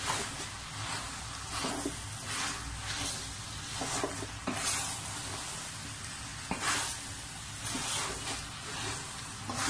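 Spoon stirring and scraping a thick minced chicken, potato and carrot mixture around a stainless steel pot, with repeated irregular scrapes against the pot over the food's steady sizzle. The flour just added is being stirred in to bind and thicken the sauce.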